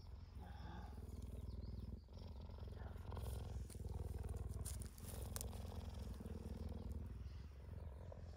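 Cheetah purring, a steady low rumble with short breaks about every two to three seconds.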